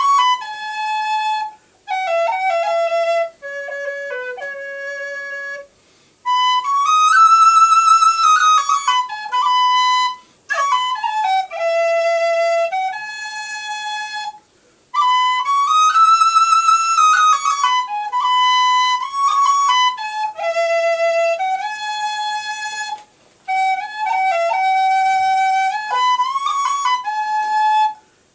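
A traditional Irish slow air played solo on a small hand-held wind instrument, one melody line of long held notes with slides between them. The phrases run a few seconds each with brief breath gaps. The highest and loudest held notes come about a quarter of the way in and again just past halfway.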